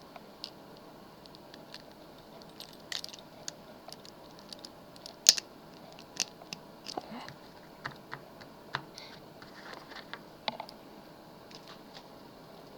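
Lock pick and tension wrench working in a pin-tumbler lock: faint, irregular small metallic clicks and scrapes, with one sharper click about five seconds in.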